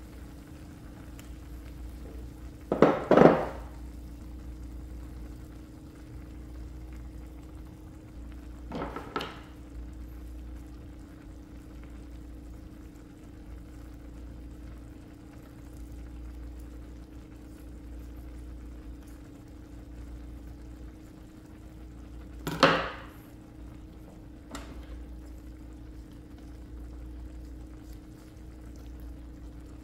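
Kitchen cooking sounds over a steady low hum: a few short clatters of pots, lids or utensils. The loudest clatter is a double one about three seconds in, and another comes about twenty-two seconds in.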